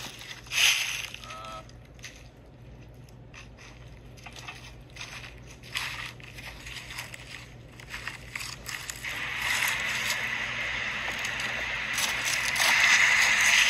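Footsteps crunching on gravel, building up and getting louder near the end, after a stretch of scattered small knocks and clicks.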